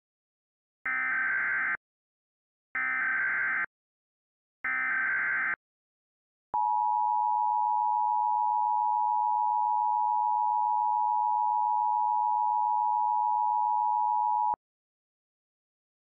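Emergency Alert System header tones: three short bursts of SAME digital data tones about a second apart, then the two-tone EAS attention signal (853 and 960 Hz together) held steady for about eight seconds and stopping abruptly. Together they mark the start of an Emergency Action Notification.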